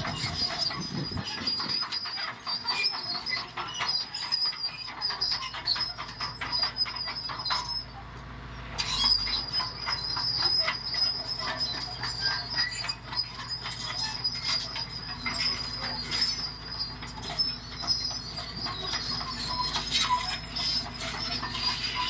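Crawler bulldozer on the move: its steel tracks clank and rattle continuously with a high, steady squeal over a low engine hum. The squeal breaks off briefly about eight seconds in.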